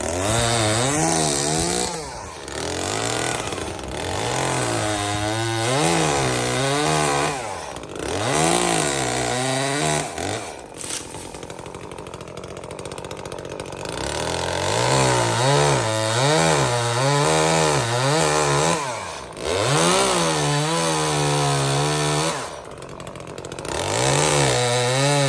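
Echo CS-355T top-handle chainsaw's two-stroke engine revving in repeated spells while cutting tree limbs, its pitch rising and falling under load. It drops back to a quieter idle twice, about halfway through and again near the end.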